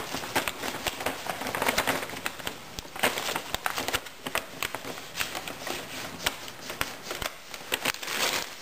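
Wrapping paper on a present crinkling and crackling in irregular bursts as a Bengal cat paws and scratches at it.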